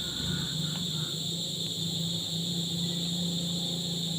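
Steady high-pitched insect chorus in several stacked tones, with a low steady hum underneath.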